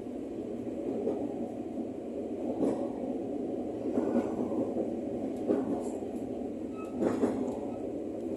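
Former Tokyo Metro 05 series electric commuter train running along the track, heard from inside its driver's cab: a steady wheel-and-track rumble with a sharper clack about every second and a half.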